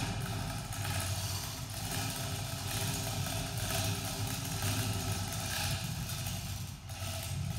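Overhead electric chain hoist motor running steadily with a low hum while it lifts the suspended aluminum boat hull.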